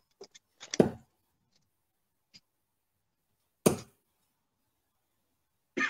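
Three short, sharp thuds, about two to three seconds apart, with a few light clicks just before the first: darts striking and being handled at a bristle dartboard.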